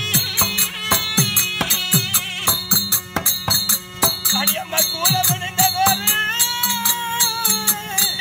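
Therukoothu folk ensemble playing: a barrel hand drum with pitch-bending strokes and small hand cymbals keeping a steady beat, joined about four and a half seconds in by a held, wavering melody line.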